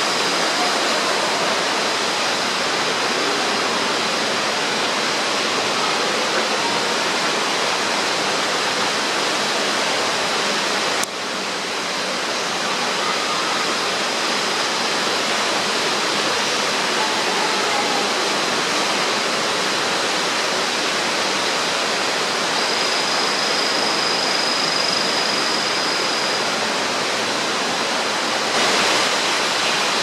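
Steady rush of falling water from an artificial waterfall in an indoor rainforest exhibit, dipping briefly about eleven seconds in.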